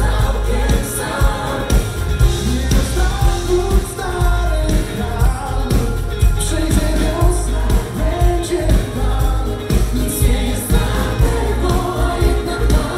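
Live pop-gospel band playing, with a lead vocalist over a backing choir, drums, electric guitars and keyboard, and a heavy, steady beat.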